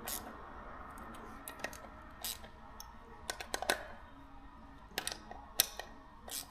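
Scattered light metallic clicks and taps of hand tools and small bolts being fitted into a motorbike engine's side casing, irregular rather than a steady ratchet rhythm.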